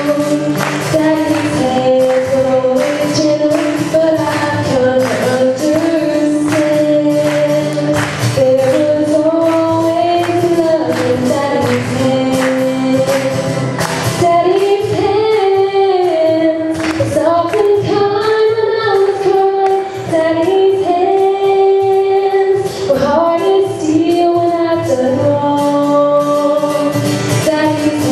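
A woman sings a slow song into a handheld microphone, with musical accompaniment.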